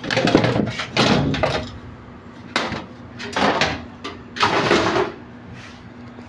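Parts of a washing machine being handled and shifted during disassembly: three bouts of scraping and knocking, each lasting about a second, over a steady low hum.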